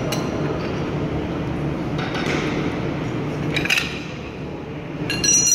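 Bearing puller's forcing screw grinding steadily as it is turned with a wrench, drawing the input shaft bearing off an Eaton transmission's input shaft. A metallic clink comes just before four seconds in, and a louder, ringing clink near the end as the bearing comes free.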